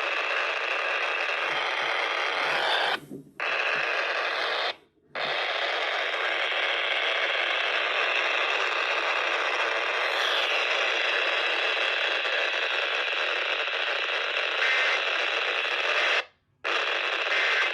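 Steady radio static hiss from a VHF receiver tuned to the 155.475 MHz EAS relay channel. It cuts out briefly about three seconds in, again about five seconds in, and once more near the end.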